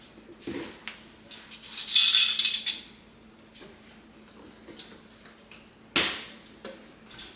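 Measuring spoons and containers handled while taco seasoning is measured out: small metallic clinks, a loud rattling scrape about two seconds in, and one sharp knock about six seconds in.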